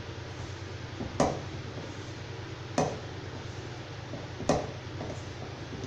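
A hand squeezing and mixing stiff gram-flour and sliced-onion batter in a steel bowl, with three louder squelching pats about a second and a half apart over a low steady hum.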